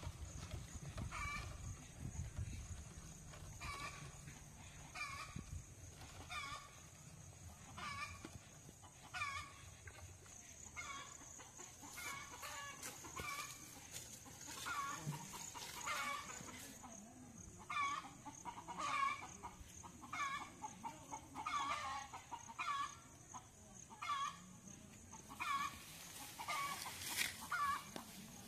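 Chicken clucking: a short call repeated about once a second, continuing throughout.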